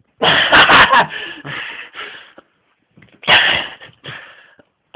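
Loud, breathy bursts of a person's voice, like gasping or straining exhalations, in two groups: the first about two seconds long, the second starting about three seconds in. A few sharp clicks come in among them.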